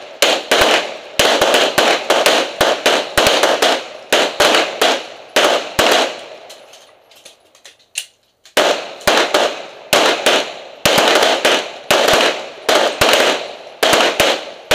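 Semi-automatic pistol firing in quick strings, about two to three shots a second, with a pause of about two seconds in the middle before the firing resumes.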